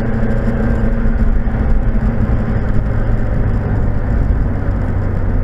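Mazda MX-5's 1.8 VVT four-cylinder engine pulling steadily uphill, heard from inside the cabin as a constant drone over tyre and road noise.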